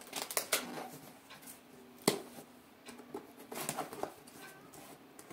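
Cardboard package being cut and pulled open by hand: scraping and rustling of cardboard and packing with a few sharp clicks, the loudest about two seconds in.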